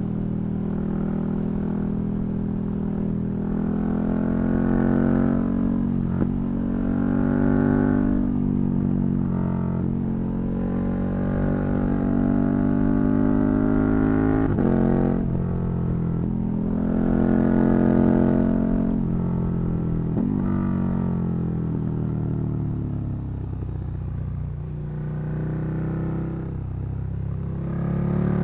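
KTM 1290 Super Duke R's V-twin engine pulling under acceleration on the move, its note climbing and dropping several times. Short sharp cracks mark some of the breaks in pitch.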